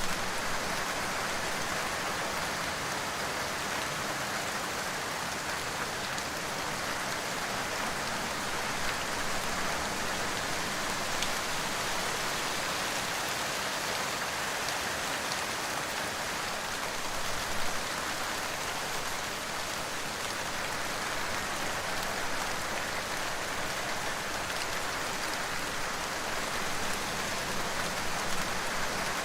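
Steady rain falling on a surface, an even hiss with a few slightly louder drops or patters, one about two-thirds of the way through.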